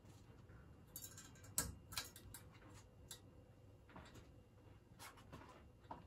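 A few faint clicks as the ceiling fan's light kit is switched on, the sharpest about one and a half to two seconds in, with a couple more near the end. Otherwise near silence.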